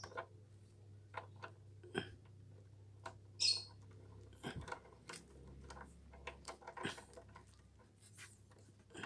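Scattered small clicks and knocks of a hose being pushed and fitted by hand onto a sprayer pump's connector, with a brief hiss about three and a half seconds in, over a low steady hum.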